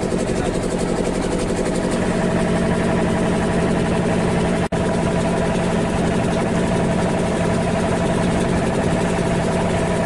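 An engine running steadily with a constant hum, briefly cutting out for an instant near the middle.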